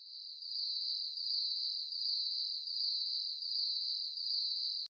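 A high-pitched, steady cricket-like chirring laid under an animated logo outro. It cuts off suddenly near the end.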